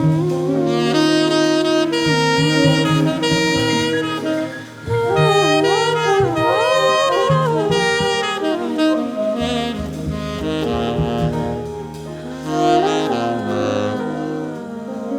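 Saxophone playing a slow, winding jazz ballad melody with gliding, bending notes over sustained low accompaniment from the band.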